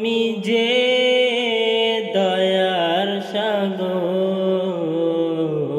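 A Bengali Islamic devotional song (gojol) sung with long, wavering notes over a steady held tone.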